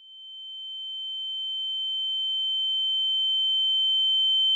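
A steady, high-pitched electronic tone with a fainter lower tone beneath it, swelling up out of silence and growing steadily louder: an edited-in ringing sound effect replacing the room sound.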